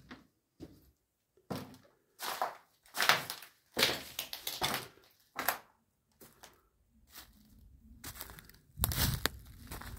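Footsteps crunching over a debris-strewn floor, about one step every three-quarters of a second. Near the end they become denser crackling and rustling as the steps move onto ground littered with twigs and wood chips.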